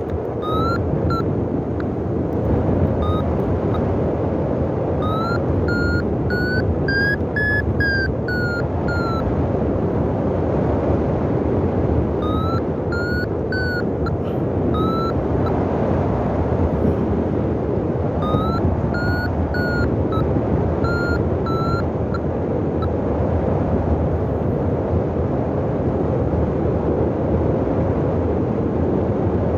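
Steady wind noise buffeting the microphone in flight, with a paragliding variometer beeping in several spells of short, quick tones whose pitch climbs and falls, signalling that the glider is in rising air. The longest and highest-pitched run of beeps comes about a quarter of the way in.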